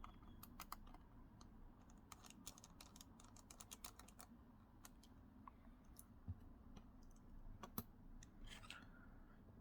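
Faint, irregular small clicks and ticks of a screwdriver fitting and tightening the retaining screw on an M.2 SATA SSD in a laptop, busiest in the first half, with a couple of slightly louder knocks later on.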